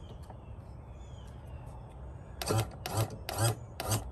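Four short rasping ratchet strokes about half a second apart, starting a little past halfway, as something is cranked tight to take some of the outboard's weight off its tilt bracket.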